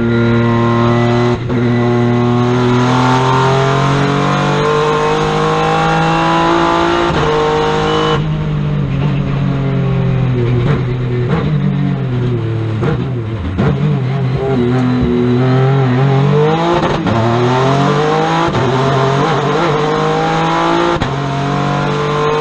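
Twin-turbo Honda J35 V6 of a mid-engined, all-wheel-drive Acura TLX GT hill-climb car, heard from inside the car under hard acceleration. The pitch climbs over the first several seconds and falls away about eight seconds in. Around the middle the engine note sinks and then climbs again as the car slows for a bend and accelerates out, holding steadier near the end.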